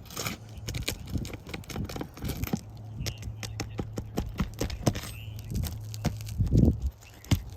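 Scattered clicks, knocks and scrapes of hands, tools and footsteps on an asphalt shingle roof, with a steady low hum through the middle and a louder knock near the end.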